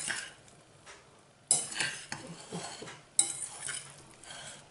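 Metal utensil stirring and scraping against a salad bowl while tossing the salad, with two louder scrapes about one and a half and three seconds in.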